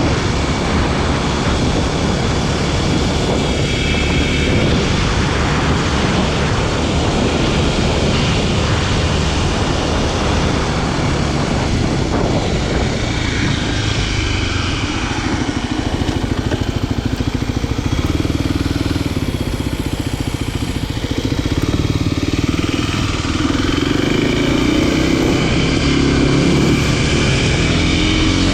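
Kawasaki KLX300SM supermoto's single-cylinder four-stroke engine running as the bike is ridden at a steady cruise; the engine note eases off about two-thirds of the way through and picks up again near the end.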